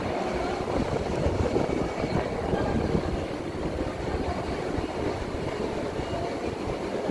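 Steady low rumble and hiss of a cable car terminal's machinery running, with faint voices from people queueing.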